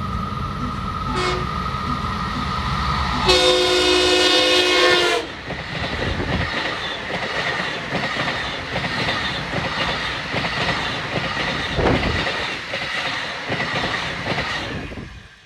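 Long Island Rail Road M3 electric multiple-unit train coming through a grade crossing: its horn sounds a chord for about two seconds, starting about three seconds in, then the cars rush past with wheels clacking on the rail joints. The sound cuts off suddenly near the end.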